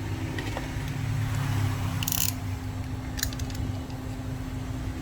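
Small repair-tool handling sounds: a short hiss about two seconds in and a few light clicks a second later, over a steady low hum.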